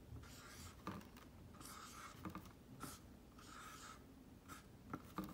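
Dry-erase marker writing on a dry-erase board: a faint series of short strokes as the letters are drawn one after another.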